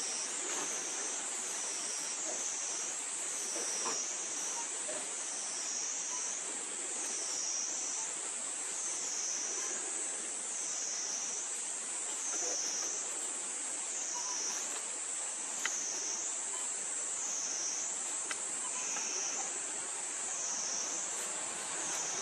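A chorus of insects making a steady high-pitched drone that wavers up and down in pitch about every second and a half, over a soft background hiss of woodland. A single sharp click sounds about two-thirds of the way through.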